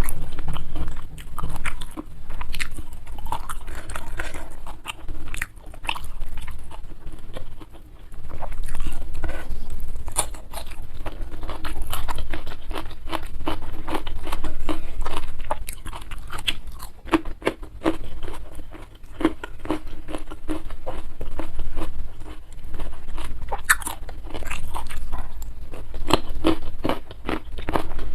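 Close-miked chewing and crunching of food, a dense run of small crisp clicks and wet mouth sounds with no pauses longer than a moment.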